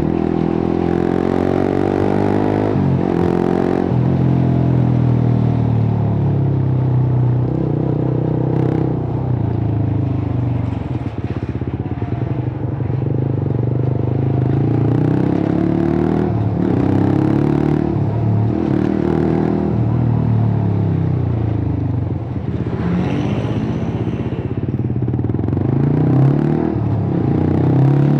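Suzuki GSX-R150's single-cylinder engine through a cut-open exhaust, its revs rising and dropping again and again.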